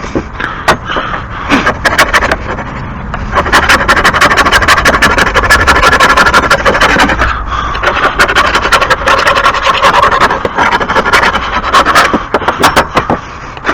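Caked grass clippings being scraped off a lawn mower: a loud, rapid run of scratching strokes with sharp clicks, pausing briefly a couple of times.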